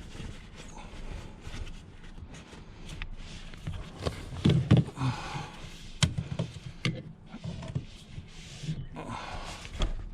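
Handling noise from a car's rear seat bottom cushion being worked into place: irregular knocks, clicks and rustling, with a heavy thump about four and a half seconds in and a few sharp clicks shortly after.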